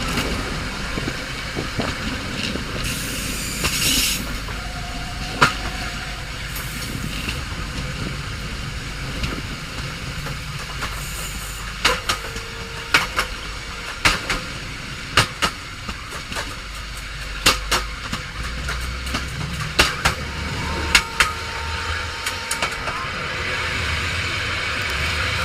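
A train running on the rails with a steady rumble. From about halfway through, loud sharp clanks come about once a second as the wheels strike rail joints.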